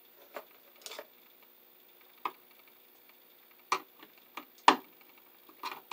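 Pliers clicking and tapping against a receptacle's screw terminal and wire as a wire loop is squeezed closed under the screw head: about six separate small clicks, with a sharper knock near the end.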